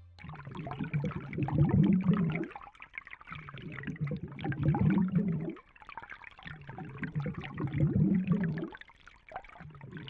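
Water pouring and trickling in repeated surges, each about two to two and a half seconds long, with short pauses between them.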